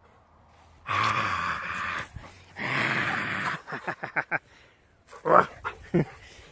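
Heavy breathing: two long, loud breathy blasts of about a second each, then a quick run of short puffs at about six a second and two more short breaths near the end.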